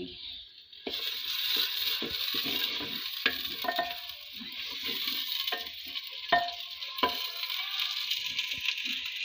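Chopped tomatoes and green chillies sizzling in hot oil in a clay pot, stirred with a long-handled spoon that scrapes and knocks against the pot. The sizzle starts about a second in and stays steady, with irregular spoon clicks.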